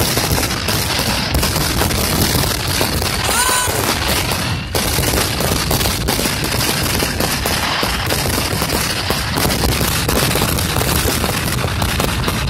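Fireworks going off in a rapid, nonstop barrage of bangs and crackling, one burst on top of the next. A short whistle comes through about three and a half seconds in.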